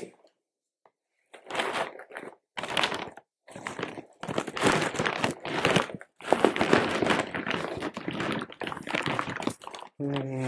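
Stiff plastic dry-food bag, freshly cut open, crinkling and rustling as it is handled. The noise comes in a string of irregular bursts.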